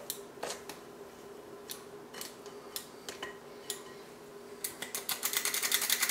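Stainless steel cookie scoop clicking and scraping in a glass bowl of stiff cookie dough, a few scattered clicks. Near the end comes a quick run of rapid metallic clicks as the scoop's spring-loaded release drops dough into a metal muffin tin.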